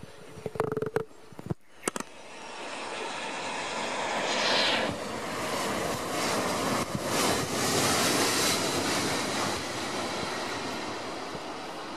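Boeing 737-900ER jet airliner landing: the noise of its CFM56-7B engines swells as it passes close, with a high whine about four seconds in, then turns to a broad rushing sound through the touchdown and rollout before slowly fading. A few sharp clicks come in the first two seconds.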